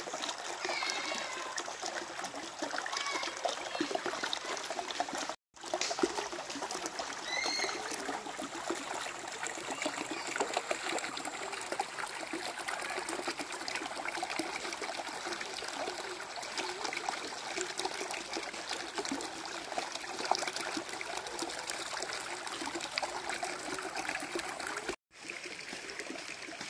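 Shallow stream water trickling steadily over rocks and pebbles. The sound cuts out abruptly for a moment about five seconds in and again near the end.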